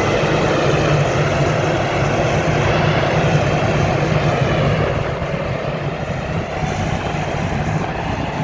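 Heavy diesel engines of a bogged truck and a large bulldozer running steadily with a deep hum, easing slightly about five seconds in.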